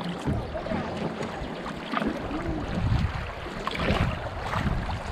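Wind gusting on the microphone with a low rumble, over choppy lake water splashing and slapping against the canoe's hull as it is paddled.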